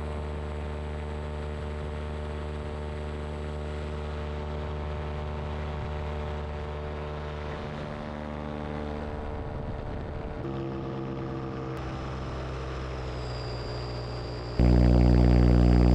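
Paramotor engine and propeller droning steadily in flight. The sound changes abruptly twice, then becomes much louder near the end.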